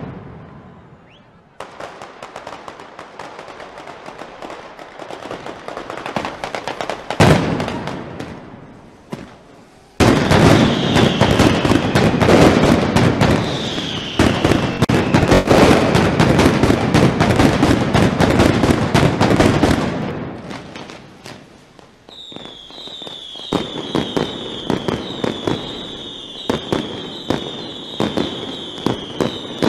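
Mascletà firecrackers going off in a dense, rapid barrage of bangs. The barrage builds up, with one big bang, then runs as a solid loud roll of explosions for about ten seconds. In the last part a high shrill whistling with repeated falling tones sounds over a steady run of separate bangs.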